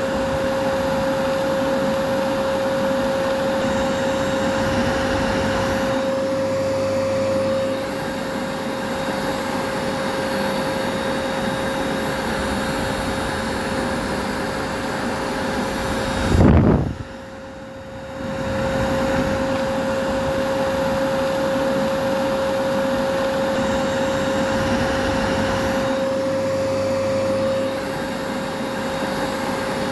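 Vacuum cleaner motor running steadily with a constant whine over its airflow noise. About halfway through comes a low thump, then the sound drops away for a second or so before the motor noise comes back.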